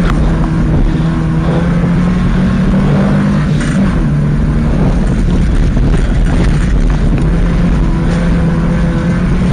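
Subaru Impreza rally car's flat-four engine running under load, heard from inside the cabin, its note stepping up and down several times, over a steady rush of tyre and road noise.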